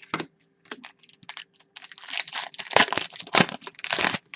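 Foil wrapper of a hockey card pack crinkling and tearing, with light clicks and rustles of cards being handled at first, then dense crackling from about halfway through that stops just before the end.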